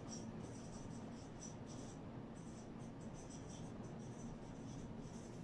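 Marker pen writing on a whiteboard: faint squeaks and scratches in short strokes as the words are written.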